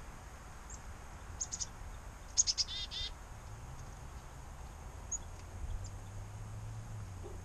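Black-capped chickadees calling. A few thin, high single notes sound, and about two and a half seconds in comes a quick chick-a-dee-dee call with buzzy 'dee' notes.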